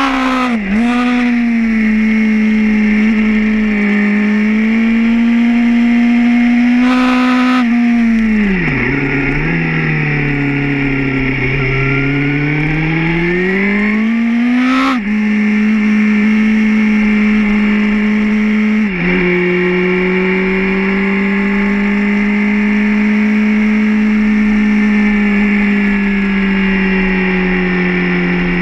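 Suzuki GSR 750's inline-four engine running hard on track. Its note drops briefly at each gear change, falls away about eight seconds in, then climbs steadily before another shift around fifteen seconds. After that it holds fairly steady.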